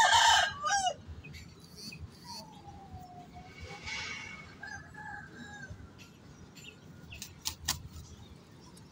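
A rooster's loud call, about a second long, right at the start, followed by quieter faint bird calls and a couple of sharp clicks near the end.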